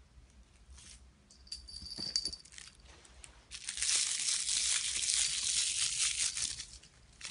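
Crinkly plastic being handled: a dense crinkling that starts about halfway through and lasts about three seconds, with softer rustling before it.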